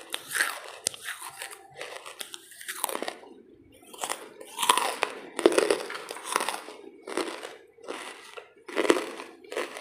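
A person biting and chewing lumps of charcoal: a run of loud, dry crunches about two a second, with a short pause about three and a half seconds in.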